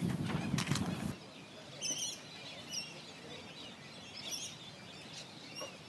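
Short chirps of small birds, a few at a time, over quiet surroundings. A louder low noise cuts off abruptly about a second in.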